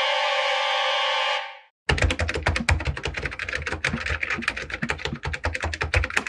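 Typing sound effect: a rapid, uneven stream of key clicks that starts about two seconds in. Before it, a steady sustained sound effect plays for about a second and a half and then fades out.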